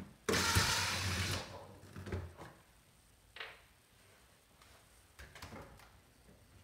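Hands and tools working on an old network patch panel that is being taken out for replacement: a loud burst of noise lasting about a second near the start, then a few light clicks and knocks.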